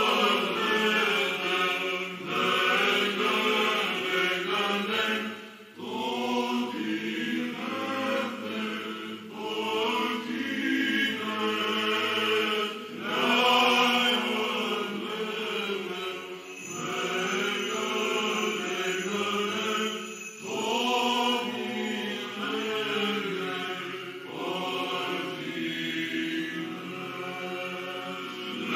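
Male Orthodox psaltic choir chanting a cappella in Byzantine style. The sung phrases break briefly every few seconds.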